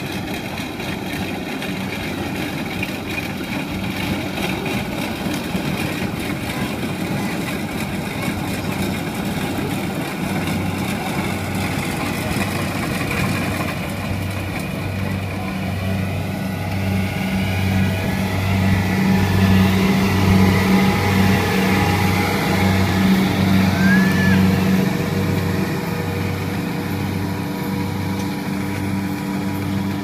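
Kubota DC70 rice combine harvester's diesel engine running steadily under load while cutting, with a regular throbbing pulse in its low hum from the middle on. It grows louder as the machine passes close, and its revs begin to drop at the very end.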